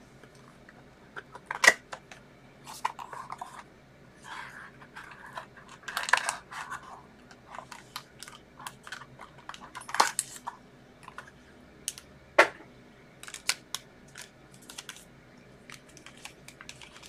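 Scattered clicks, taps and light rustles of hands handling a cardboard box of trading cards, with a few sharper clicks.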